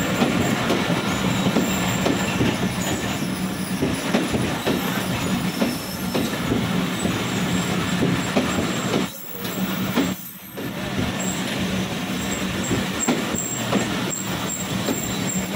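Passenger train coaches rolling slowly past close by: a steady rumble and rattle of steel wheels on the rails, with thin high wheel squeals now and then. The noise drops briefly twice just past the middle.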